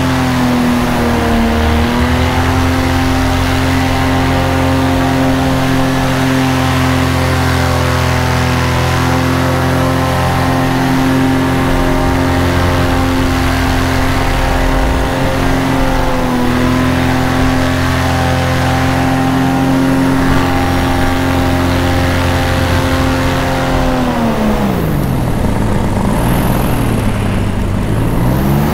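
Paramotor engine and propeller running at a steady high speed, with brief dips in speed about a second and a half in and again about sixteen seconds in. Near the end the throttle comes off and the pitch drops sharply, then climbs again as the power comes back on.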